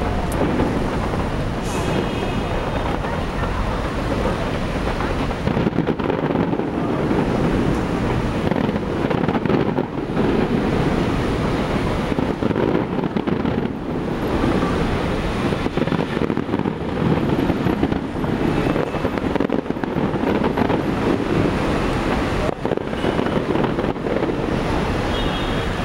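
Steady rushing wind noise on the microphone, with a faint murmur of voices and the low rumble of distant fireworks underneath.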